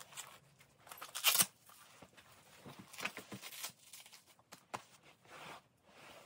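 Nylon fabric and strap rustling and scraping as a small soft-armor vest made from DAPS deltoid protectors is pulled onto the chest and fastened, with a short ripping rasp about a second in.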